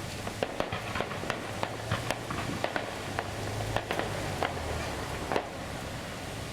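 Fireworks crackling: many sharp pops at irregular intervals over a steady hiss, with a low rumble underneath. The pops thin out near the end.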